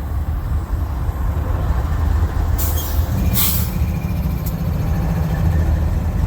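BNSF diesel locomotive lash-up running with a steady deep engine rumble. About two and a half seconds in come two short hisses of air, then a single click.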